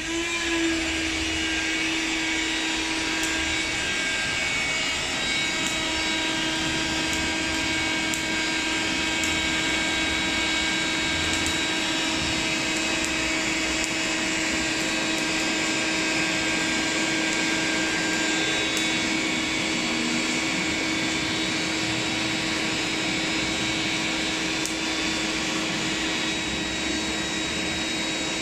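The 'dragon's breath' electric fire blower cuts in suddenly and runs steadily with a motor whine and rushing air, blowing into a burnt-down charcoal fire to bring its heat back up.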